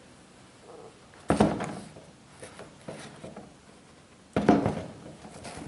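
A pair of black leather high-top sneakers being handled and shifted about on a tabletop. There are two loud bumps, each with a short rustle after it, about a second in and again past four seconds, and faint rubbing between them.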